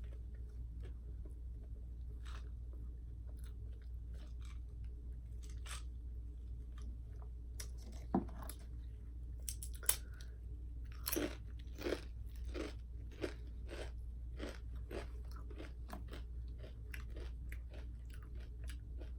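A person chewing crunchy food close to the microphone: irregular crunches that come thickest and loudest a little past halfway, over a steady low hum.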